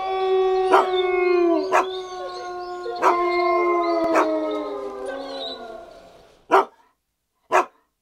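A dog howling in one long, slowly falling note that fades out, with four sharp hits over it; then two short clicks near the end.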